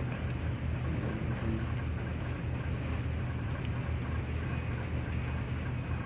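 Steady low hum of a ship's machinery, unchanging throughout.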